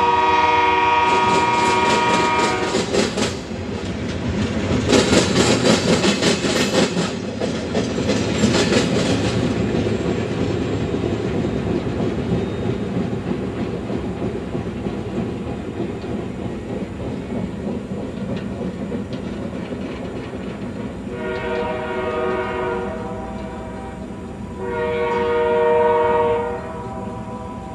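Diesel locomotive air horn sounding a chord, cutting off about three seconds in, followed by a freight train's wheels clattering loudly over the rails for several seconds and then a steady rolling rumble. Near the end the horn sounds again in two blasts.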